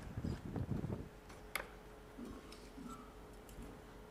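Faint clicks and light knocks, with one sharper click about one and a half seconds in, over a faint steady hum.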